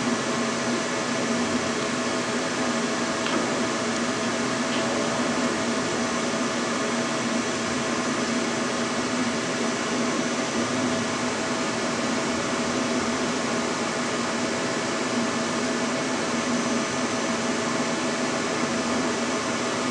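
Flashforge Creator 3 Pro 3D printer running a print: its fans and motors make a steady, fairly loud whirring hum.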